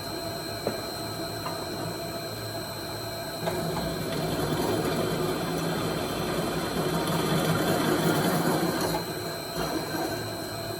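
A small machine running steadily with a constant high whine, getting louder about a third of the way through.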